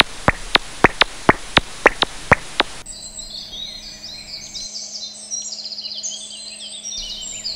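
A regular train of sharp clicks, about four a second, over a hiss: a Leisler's noctule's echolocation calls made audible through a bat detector. About three seconds in they give way to woodland birdsong, many chirps and quick trills.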